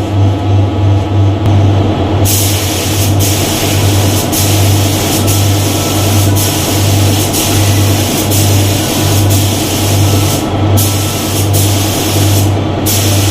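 Paint spray gun hissing as it sprays, starting about two seconds in, with brief pauses in the trigger near the end.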